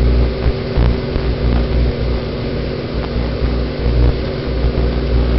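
Microwave oven running: a steady hum with an uneven low rumble beneath it.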